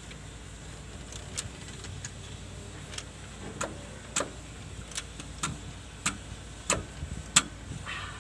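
Irregular sharp metal clinks and clicks, about a dozen of them, louder toward the end, as hand tools are handled on metal, over a low steady hum.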